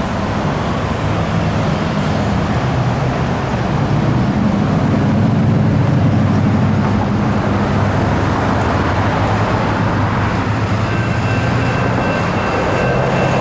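Road traffic driving past: cars and pickup trucks, with steady engine and tyre noise. About eleven seconds in, the crossing's electronic warning bell starts ringing as the signals activate.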